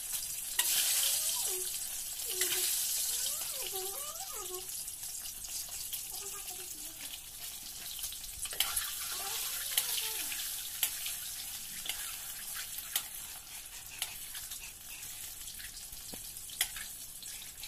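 Boiled eggs frying in hot oil in a metal wok, a steady sizzle that slowly grows quieter, with occasional light clicks as a spatula turns them in the pan.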